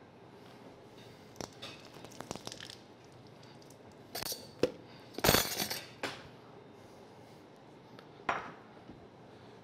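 Dishes and utensils being handled on a kitchen counter: a run of light clicks after about a second, a louder clatter of bowls and utensils around the middle, and a single knock near the end.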